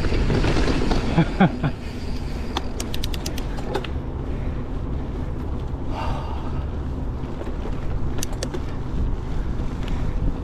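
Wind buffeting the microphone of a harness-mounted action camera on a moving mountain bike, a steady low rumble. A quick run of sharp clicks comes about three seconds in and a few more about eight seconds in, rattles from the bike on the trail.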